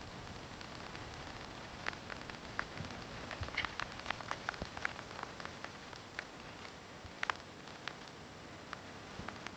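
Steady light rain: an even hiss with many separate drops ticking close by, the drops coming thickest around the middle.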